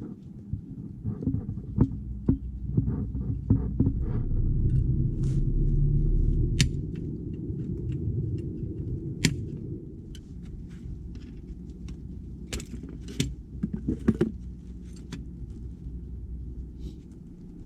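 Scattered sharp clicks and knocks, like hand tools and metal parts being handled, over a steady low rumble that swells about four to seven seconds in.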